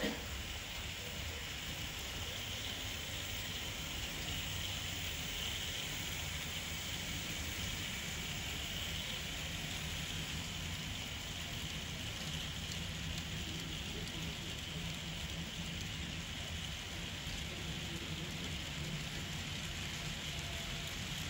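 A long string of HO scale ore cars rolling steadily along model track, the many small metal wheels making a continuous, even patter.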